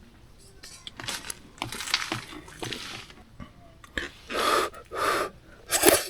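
A person eating at a camp table: a few light clicks of tableware, then three short breathy sounds in the second half.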